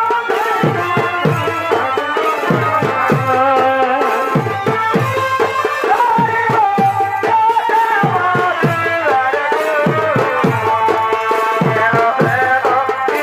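Purulia Chhau dance music: a sustained, wavering melody over fast, dense drumming whose strokes drop in pitch.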